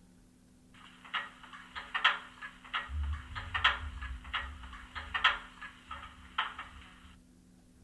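Onboard digital sound decoder of a Roco H0-scale NS series 200/300 'Sik' shunting diesel locomotive model playing its foot-brake sound (function F18) through the model's own small loudspeaker. It is a run of irregular clicks and clanks, roughly two a second, over a thin hiss, and it stops shortly before the end.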